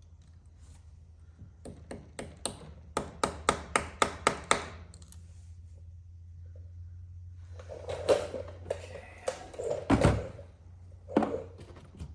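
Sharp metal-on-metal taps of a small punch being struck to knock off the drive tang of a freshly installed coil thread-repair insert: about eight quick taps in a row, then a pause and a few heavier knocks and clatter, the loudest about ten seconds in.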